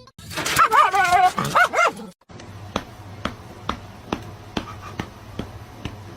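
An animal's whining cries, rising and falling in pitch for about two seconds. After a short break comes a steady run of clicks, about two a second, over a low hum.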